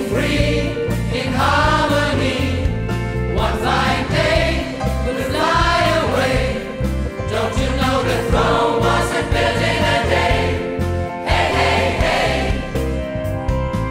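Gospel choir singing with a female soloist over a live band with a bass line.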